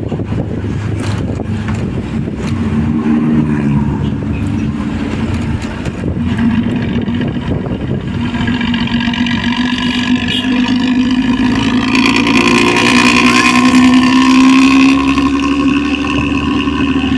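Hino diesel bus engine running with its characteristic snoring, growling ('ngorok') exhaust note, getting louder in the second half and loudest near the end.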